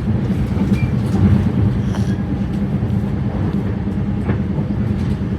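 Train running with a steady low rumble and a few faint ticks.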